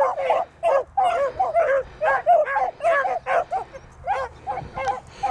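Beagles baying on a rabbit hunt: quick, repeated short yelping cries, about three a second, from hounds giving voice as they run the rabbit's trail.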